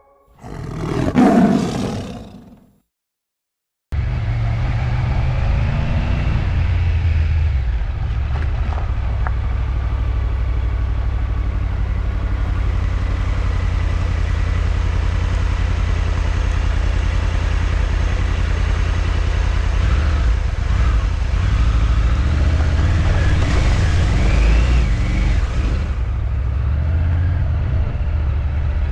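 Short loud burst about a second in that fades away, then a moment of silence. Then a Triumph Tiger 900's three-cylinder engine runs at low revs, steady and deep, with the revs rising and falling a few times between about 20 and 25 seconds.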